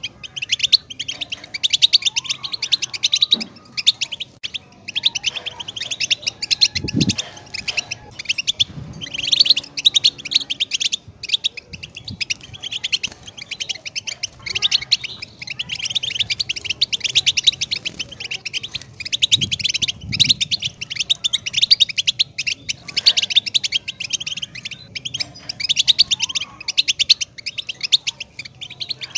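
European goldfinch singing: a long, near-continuous run of rapid, high twittering notes broken by brief pauses.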